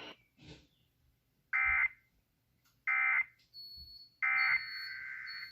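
Emergency Alert System End of Message data tones: three short, identical bursts of warbling digital data, about a second and a half apart. This signals the end of the tornado warning broadcast. After the third burst a quieter steady tone holds for about a second.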